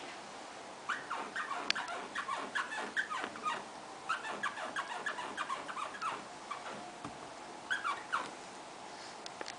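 Sunroof of a Toyota Celica T23 squeaking as a fault: runs of short, high chirping squeaks in quick succession. They come in several bursts a second or two long, with short pauses between.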